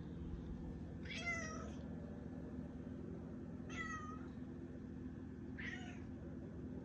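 Domestic cat meowing three times, a couple of seconds apart, each call short and falling in pitch at the end, over a steady low hum.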